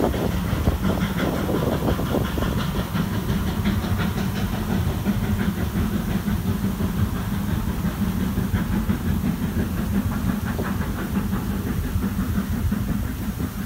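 GWR Manor class 4-6-0 steam locomotive 7827 Lydham Manor hauling its coaches away: steam exhaust and hiss with the clickety-clack of the train's wheels, under a steady low drone.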